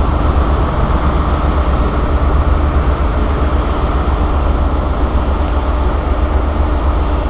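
High Speed Train (InterCity 125) pulling out, its Class 43 diesel power car running with a steady, heavy low rumble and a faint held tone.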